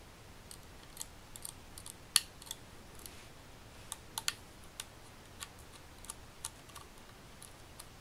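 Faint, irregular metallic clicks and ticks of a small screwdriver turning out the side screws of a laptop hard drive's steel mounting bracket, the sharpest click about two seconds in.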